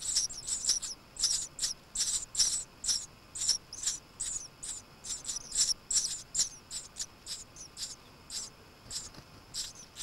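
Eurasian tree sparrows chirping at the nest while the chicks are being fed: a steady string of short, high chirps, about two or three a second.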